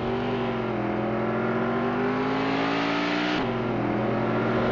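Engine revving sound effect for the monster trucks as they drive off. The engine pitch climbs slowly, drops suddenly about three and a half seconds in, then climbs again.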